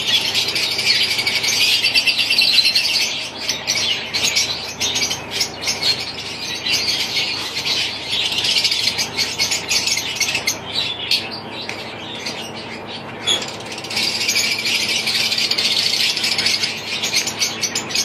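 Aviary of caged lovebirds and budgerigars chattering and chirping, a dense high twittering that is loudest at the start and again near the end. In between come rapid clicks and wing flutters.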